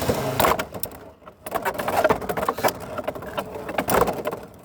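Two Beyblade X spinning tops launched into a plastic stadium, then spinning and clashing with a rapid run of sharp clicks and knocks.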